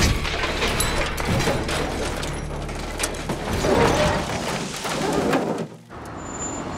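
Film sound of an SUV crashing and rolling over: a loud impact, then a run of metal crunches, scrapes and clattering debris that cuts off suddenly near the end.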